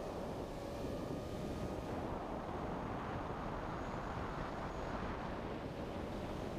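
Steady drone of a camera drone's motors and propellers, heard from its onboard camera, with wind rushing over the microphone.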